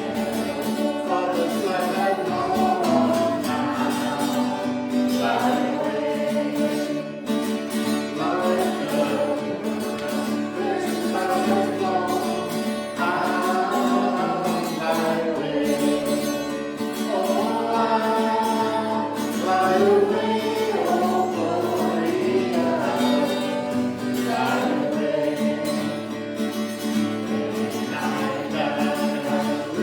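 Congregational gospel singing: a group of voices singing a hymn together over instrumental accompaniment.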